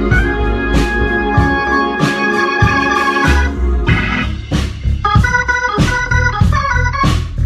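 Band playing: an organ holds sustained chords over drum hits and bass, then switches about five seconds in to short, rhythmic chord stabs.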